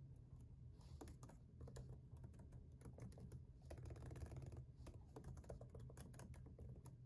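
Fingers typing on a MacBook Pro laptop keyboard: faint, irregular key clicks.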